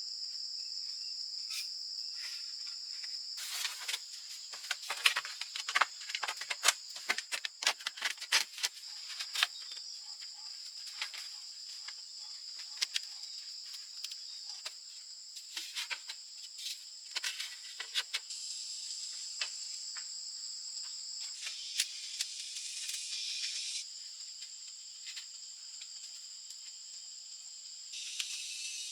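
Steady high-pitched drone of rainforest insects, a chorus of crickets or cicadas. Over it, in the first half, comes a flurry of sharp clicks and knocks.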